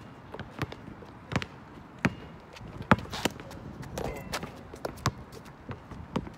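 A basketball being dribbled on an outdoor court, with players' footsteps on the pavement: a string of sharp, irregularly spaced thuds, the loudest about three seconds in.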